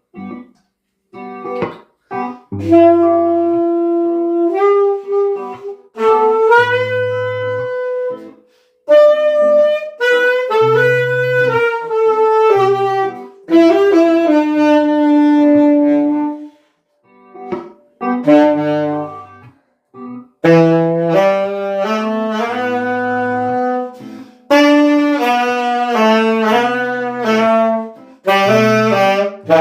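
Instrumental break in a song: a lead melody of held and shorter notes over a bass line, with no vocals.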